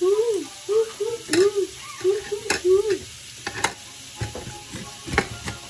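Steak sizzling and frying in a griddle pan on a gas hob. For the first three seconds a voice sounds short wordless notes over it, and a few sharp clicks follow.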